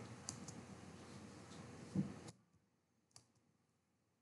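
A few faint clicks at a computer, with a dull thump about two seconds in. A faint background hiss cuts off suddenly just after the thump.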